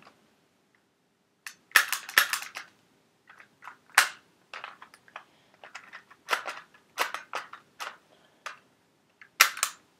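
Sharp plastic clicks and rattles, in irregular clusters with short gaps, from handling a spring airsoft pistol and its spare magazine.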